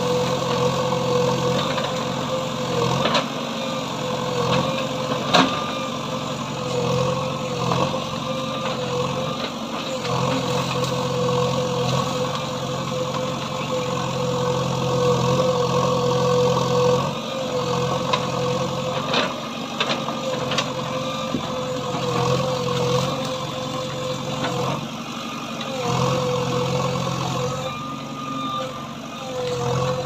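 JCB 3DX backhoe loader's diesel engine running steadily as the backhoe arm digs through brush, with a steady whine over the engine note. A few sharp knocks stand out, the loudest about five seconds in.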